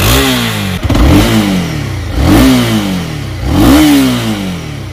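Honda CB300R's 286 cc single-cylinder DOHC engine blipped four times at standstill in neutral, each rev rising sharply and falling back toward idle, to show off its exhaust note.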